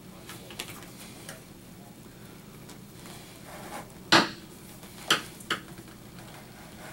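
Clicks and knocks from handling a leather baseball glove while relacing it, pulling the lace through and working the glove: a few faint ones early, a sharp loud one about four seconds in, and two more about a second later.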